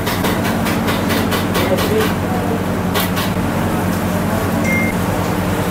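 Cornflake-coated chicken fingers frying in hot oil, sizzling and crackling, busiest in the first couple of seconds, over a steady low hum.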